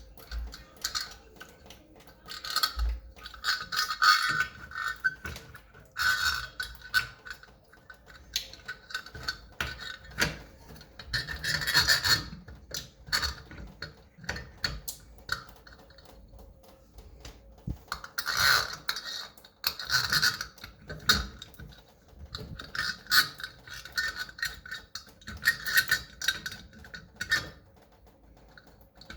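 Shower valve parts being handled and fitted by hand: irregular clicks, scrapes and short squeaky rubbing of plastic and metal, coming in several busy spells.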